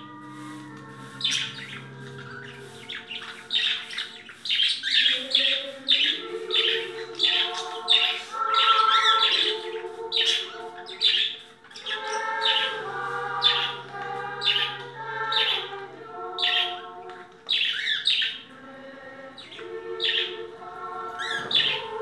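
Birds chirping again and again over slow choral music with long held chords and a sustained low note.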